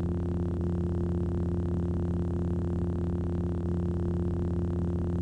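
Steady electronic drone of several sustained low tones with a faint even pulse, like a held synthesizer chord.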